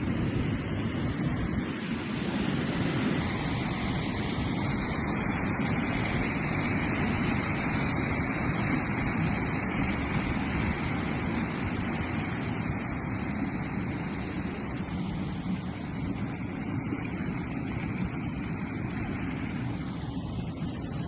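Steady, unbroken rush of the Cexuchic waterfall, a drop of nearly 30 metres.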